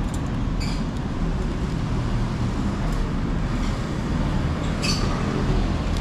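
Steady low rumble of background noise, with a couple of brief faint clicks or hisses.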